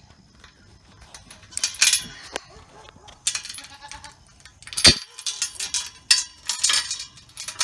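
Rattling and clinking of gear being handled, in uneven bursts, with a sharp knock about five seconds in.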